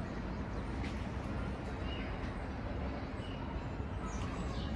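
Outdoor city ambience: a steady low rumble of distant traffic, with small birds chirping now and then.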